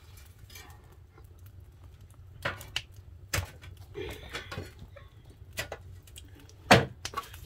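Kitchenware being handled: a handful of separate sharp knocks and clinks, the loudest about two-thirds through, over a low steady hum.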